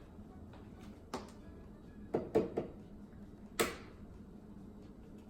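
An egg being knocked against a hard edge to crack it: about five short, sharp taps, three of them in quick succession in the middle.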